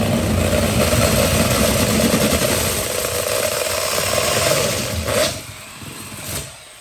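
Heavy-duty corded Craftsman drill turning a 7-inch hole saw through sheetrock, the motor running steadily under load. It stops about five seconds in, with one brief burst near the end.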